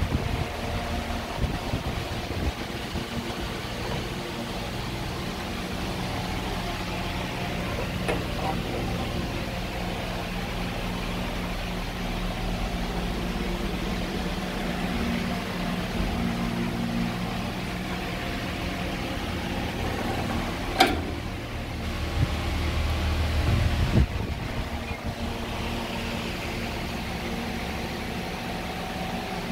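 Steady hum of running machinery, with a sharp click about two-thirds of the way through and a softer knock a few seconds later.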